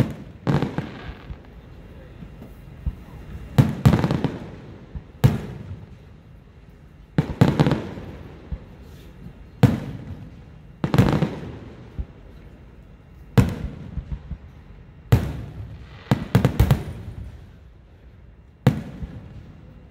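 Aerial firework shells bursting, a sharp boom every one to three seconds, each followed by a rumbling echo, about a dozen in all, with a quick run of several bangs together about sixteen seconds in.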